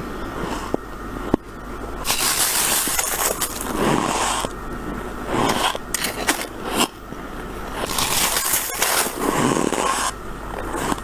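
Freezer frost being bitten and chewed: a series of crunching bites, some short and some drawn out over a second or two.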